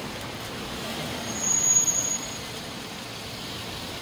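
Steady street traffic noise, with a brief high-pitched squeal about a second and a half in that lasts under a second.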